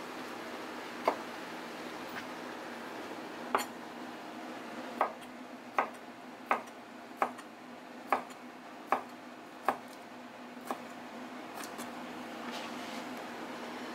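Kitchen knife chopping octopus tentacles on a cutting board: about ten sharp knocks of the blade on the board. They come in a quick, even run through the middle, over a steady background hiss.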